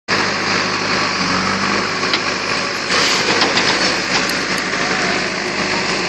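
Diesel engine of a JCB 3DX backhoe loader running steadily under working load as the backhoe arm swings the bucket from the spoil heap back down into the pit.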